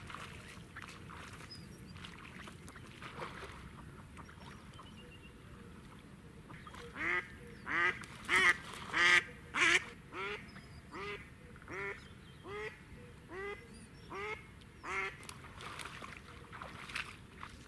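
Live decoy hen duck quacking in a series of about a dozen calls, roughly one every 0.7 seconds, starting about seven seconds in, loudest in the first few and then fading. Before the calls, faint footsteps through wet grass and water.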